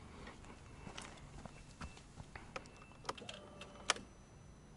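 Faint scattered clicks and light taps, irregular, with the sharpest click about four seconds in.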